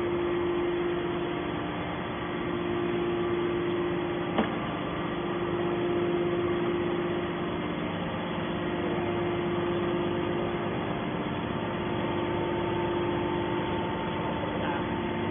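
Hydraulic baler's power unit running with a steady hum, with a single sharp click about four seconds in.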